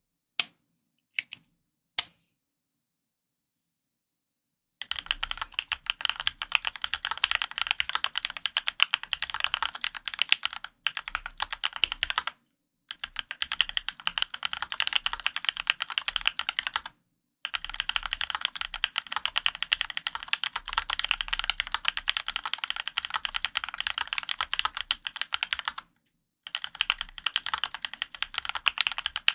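Typing on a Dolphin 2021 custom mechanical keyboard with Krytox-lubed Gateron Yellow Pro linear switches, an aluminium plate and Hammerworks CRP R4 keycaps. A few single keystrokes, a pause of about three seconds, then a rapid, steady stream of keystrokes broken by a few brief pauses.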